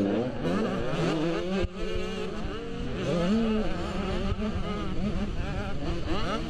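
Motocross bike engine heard from on board, its note rising and falling with the throttle through a turn and up a straight, with a brief drop in level about one and a half seconds in. Other dirt bikes are running just ahead.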